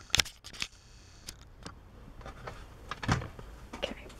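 Handling noises: a few sharp clicks near the start, then a dull knock about three seconds in, as things are moved about on a desk.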